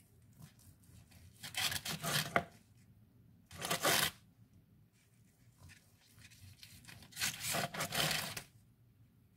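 Serrated bread knife sawing through a rolled chicken breast on aluminium foil, in three spells of strokes: about 1.5 s in, near 4 s, and again from about 7 to 8.5 s in.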